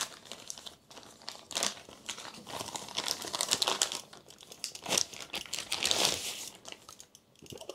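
Gift wrapping being torn and pulled off a small box: irregular crinkling and ripping, with louder spells about a second and a half and five seconds in.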